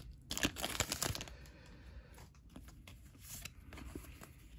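Foil Pokémon card booster pack wrapper crinkling as it is pulled open, loudest in the first second. After that comes a faint rustle and clicking of the trading cards being handled.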